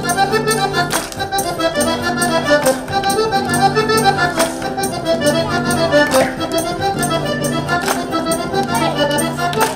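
Accordion playing a traditional folk dance tune: a moving melody over repeating held bass notes, with a sharp tap on the beat about once a second.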